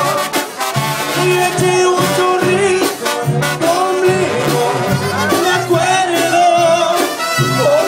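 Live banda music played loud: brass and tuba over drums and accordion, with a man singing.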